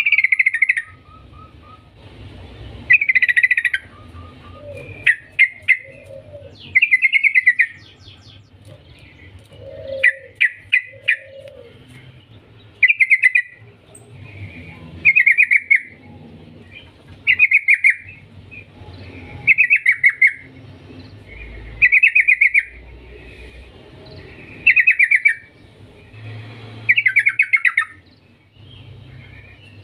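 Yellow-vented bulbul (trucukan) singing: short phrases of quick bubbly notes, repeated about every two to two and a half seconds with brief pauses between.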